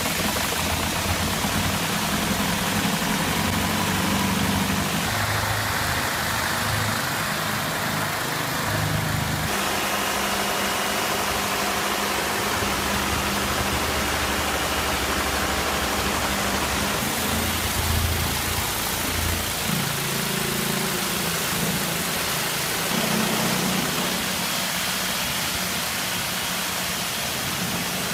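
Steady hiss of high-pressure water jetting from a Mosmatic Hurricane PRO Z wheel and chassis washer onto heavy vehicle tyres and underbody, with a low engine hum underneath.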